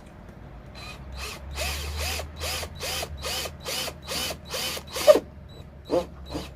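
Power drill run in short repeated pulses, about two and a half a second, while drilling a bolt hole through the lip chin and its mounting blocks. Each pulse spins up and down, and the last few are sharper and louder.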